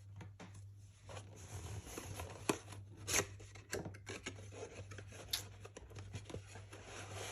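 A cardboard watch box being handled and opened: cardboard and paper rubbing and rustling, with a few sharp clicks and snaps.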